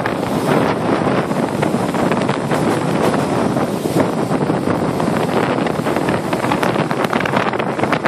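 Wind buffeting the microphone over the steady running noise of a moving train, heard from the open window or door of the car as it travels along the track.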